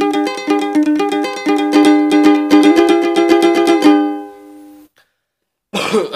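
Three-string kentrung, a small ukulele-type instrument tuned G-B-E, playing the keroncong picking pattern fast, with strings plucked in quick pairs over changing chords. The playing stops about four seconds in and the last notes ring out.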